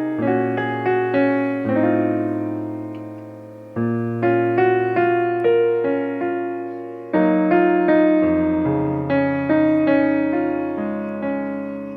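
Soft piano background music: slow chords with a melody on top and held bass notes, a new phrase starting every few seconds.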